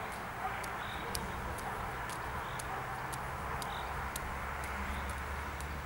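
Outdoor background: a steady low hum with a constant noisy wash over it, and faint sharp clicks about twice a second.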